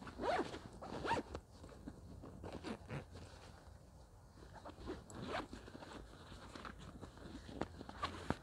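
Backpack zip pulled in several short, irregular runs, with fabric rustling as gear is pushed into the bag.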